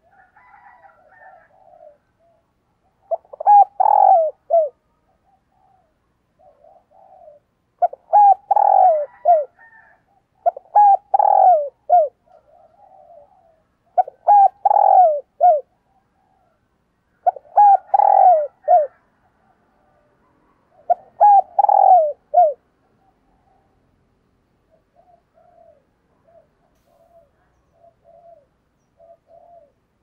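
Spotted dove cooing its calling song: six loud phrases of several short coos each, about every three to four seconds, with softer cooing between them and near the end.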